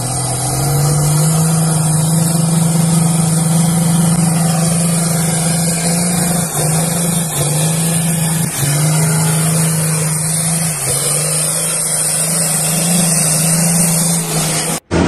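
Diesel engine of an off-road 4x4 held at high revs while wading through deep water: a steady, loud drone that rises in pitch about a second in and dips briefly a few times, with a steady hiss above it. It cuts off suddenly near the end.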